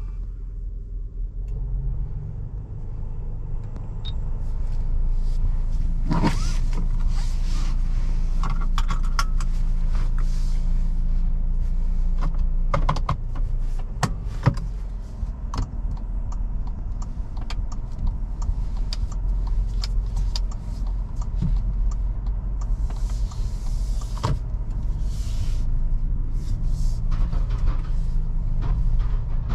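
Toyota Fortuner 2.7 petrol SUV on the move: a steady low rumble of its naturally aspirated four-cylinder engine and tyres on the road, growing louder over the first few seconds. Scattered clicks and knocks come through now and then.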